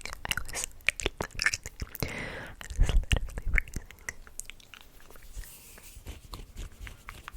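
Close-miked ASMR mouth sounds: a quick run of wet clicks and smacks from lips and tongue. A breathy hiss comes about two seconds in, and a few low thumps around three seconds are the loudest part.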